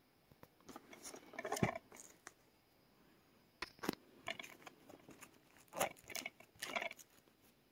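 Hands handling a plastic DVD case and turning it over, giving a string of short clicks, taps and rustles with a pause in the middle.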